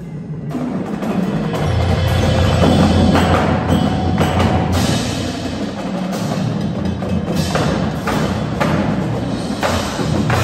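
Indoor percussion ensemble playing loudly: marching drumline with a front ensemble of mallet keyboards. Sharp accented hits land every second or so, and a deep sustained bass comes in about two seconds in and sits underneath.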